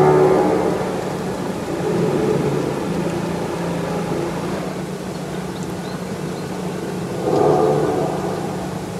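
Low steady drone with groan-like swells of higher tones that rise and fade every few seconds: the so-called 'hum of the Earth', an unexplained rumble that the recordist could not trace to any source.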